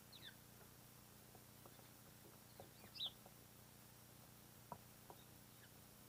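Small songbirds at a seed feeder giving a few short high chirps, one falling in pitch at the start and the loudest about three seconds in, with a few faint ticks against a quiet background.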